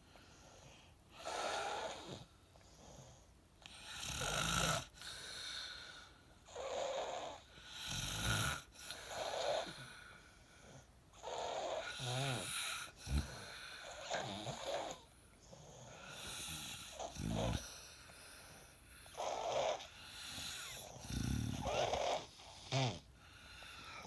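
A man snoring in his sleep, one snore every two to three seconds, each rising and falling with quieter breaths in between.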